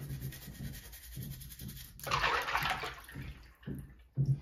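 Keycaps being scrubbed with a toothbrush and rinsed in a sink of water: soft rubbing strokes, then a loud slosh of water about two seconds in, lasting about a second, and a few small knocks of plastic near the end.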